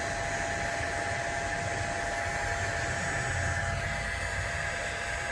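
Steady blowing hiss of a hot air rework station's fan and air flow, even throughout, with a faint steady whine in it.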